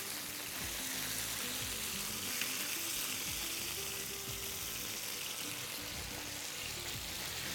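Salmon steaks sizzling steadily as they sear in a hot ridged grill pan, over soft background music.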